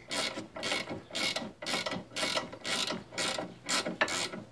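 17 mm ratchet wrench clicking in short repeated bursts, about two a second, as it is worked back and forth to unscrew the lower nut of an anti-roll bar link.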